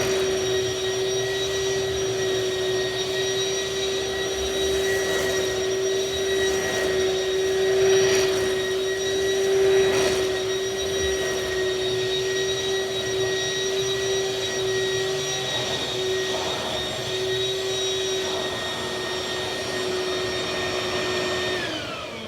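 2004 Hoover Quick Broom bagless stick vacuum running with a steady whine, then switched off near the end, its pitch falling as the motor winds down.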